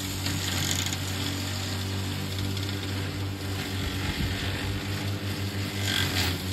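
Battery-electric remote-control lawn mower running with a steady hum, with a short louder rasp about six seconds in.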